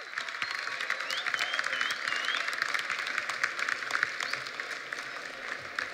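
Crowd applauding: dense clapping from many hands, with a few high cheers about a second in, easing off slightly near the end.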